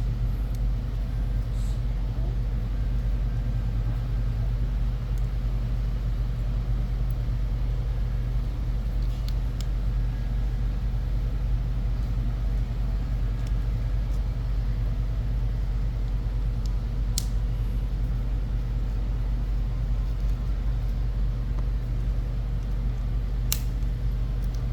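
A steady low hum, with a few faint sharp metal ticks from an Allen key and screws as the screws are taken out of an airsoft gearbox shell.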